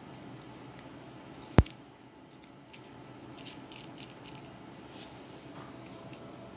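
A single sharp click about a second and a half in, then a few faint scattered ticks, over a steady low hiss.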